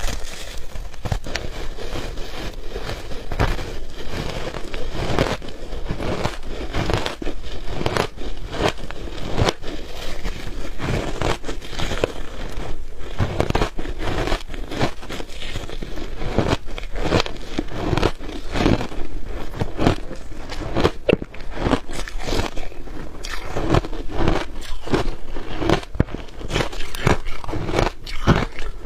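Shaved ice being bitten and chewed: a continuous run of crunches and crackles, several a second.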